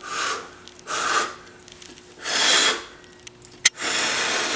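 A person blowing on a forkful of hot food to cool it: four short puffs of breath, each about half a second, with a single sharp click between the third and fourth.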